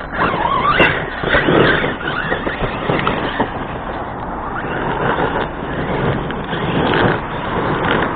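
Arrma Kraton RC truck's brushless electric motor whining, rising sharply in pitch in the first second as it accelerates, with the tyres and chassis crunching and rattling over rough, rocky ground.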